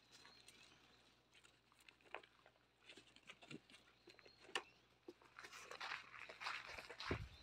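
Faint scattered clicks and rustles of puppies nosing and chewing food in a cardboard box, with light paw steps on dirt getting busier after about five seconds.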